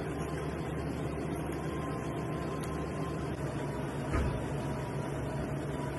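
Steady mechanical hum of kitchen machinery, with a single low thump about four seconds in.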